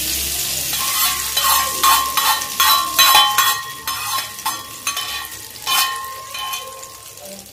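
Hot tempering oil with mustard seeds, cumin and curry leaves sizzling as it meets the coconut chutney, then a spoon stirring it in, clinking repeatedly against the ceramic bowl with a brief ringing tone, the clinks thinning out near the end.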